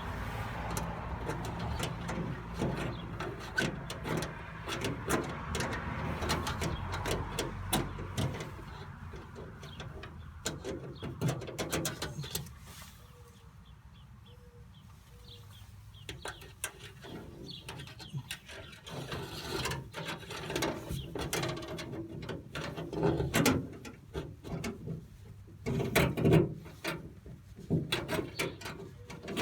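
Clicking, scraping and rustling of a copper wire and rubber washer hose being worked through the hood's hose port, with irregular knocks and taps. About halfway through, in a quieter stretch, a bird coos faintly three times.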